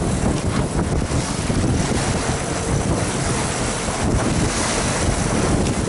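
Wind buffeting the microphone over the rush and splash of sea water churning along a moving boat's side, a steady loud noise without let-up.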